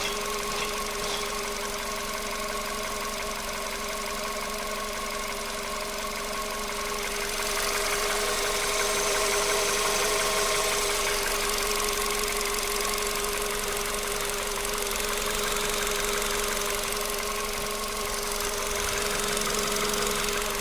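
Volkswagen Polo sedan petrol engine idling warm, with a steady whine running through it. This is the extraneous engine noise the owner is showing. It grows louder for a few seconds around the middle and again near the end.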